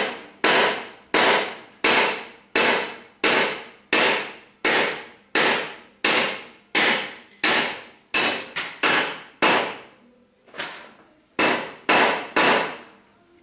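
Hammer tapping on a bolt threaded onto the top of a seized Craftsman 42-inch mower deck blade spindle shaft, to drive the stuck shaft loose without damaging its threads. Steady sharp strikes with a short ringing tail, roughly every two-thirds of a second, then a brief pause near the end and three quicker taps.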